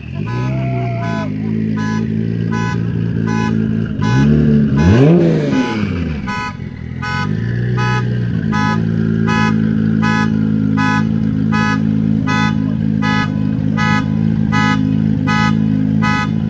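Tuned Nissan GT-R's twin-turbo V6 engine blipped twice, a short rev near the start and a bigger rise and fall about five seconds in, then idling steadily. A car's electronic warning chime beeps over it about one and a half times a second throughout.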